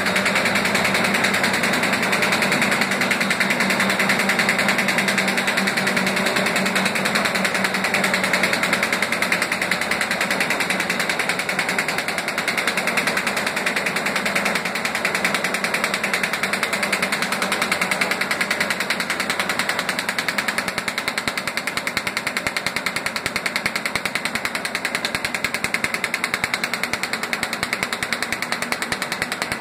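Automatic paper bag and envelope making machines running, a fast, steady mechanical clatter of rollers, shafts and cutting and folding parts cycling.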